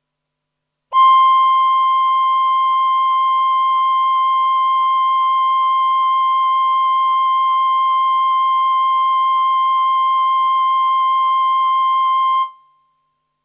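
Roland VP-330 synthesizer on its male human-voice preset holding a single steady note for about eleven seconds, starting about a second in, then stopping with a short fading tail.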